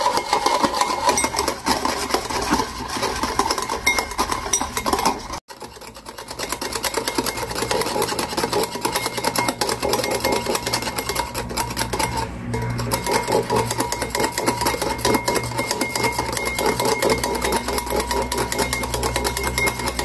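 A metal fork beating coffee powder, sugar and water in a glass bowl: a fast, steady clatter of the fork against the glass as the mixture is whipped into a foam. The sound cuts out briefly about five seconds in.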